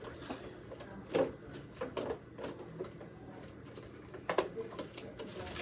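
Irregular knocks and clatters of objects being handled, with sharper ones about a second in, around two seconds and about four and a half seconds in, over a faint steady low hum.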